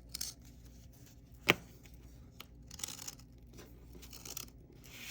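Paper packaging being opened by hand: soft rustling and tearing of paper, with one sharp click about a second and a half in.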